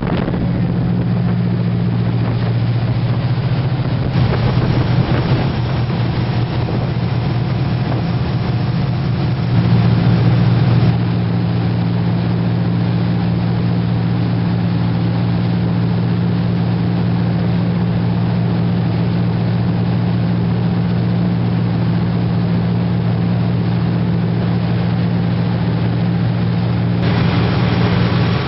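A ferry's engines running with a steady low drone, over the rush of water churned up in the wake. The hiss of water and wind grows louder near the end.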